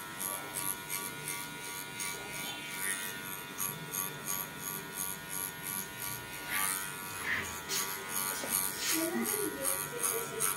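Electric hair clippers with a guide comb running with a steady buzz as they cut short hair, over faint background music with a regular beat. Faint voices come in briefly near the end.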